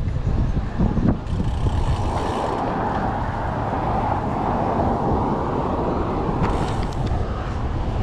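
Road noise from a passing vehicle, swelling in the middle and fading again, over a steady low rumble of wind on the microphone of a moving bicycle.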